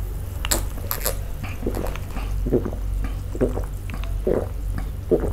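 A person gulping cola, swallowing in a steady rhythm about once a second, with a couple of sharp lip or glass clicks near the start.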